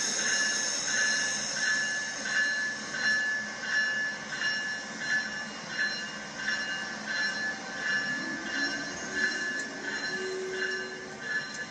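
LEGO battery-powered passenger train running on plastic track: a steady high-pitched electric motor whine that pulses evenly about one and a half times a second.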